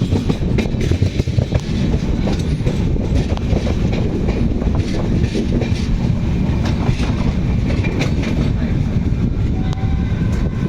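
Passenger train running on the rails: a steady low rumble with the clicking of wheels over rail joints.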